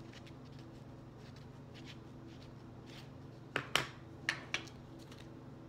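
Hands handling a homemade paper squishy and a pencil: a few short paper rustles and clicks about three and a half to four and a half seconds in, over a steady low hum.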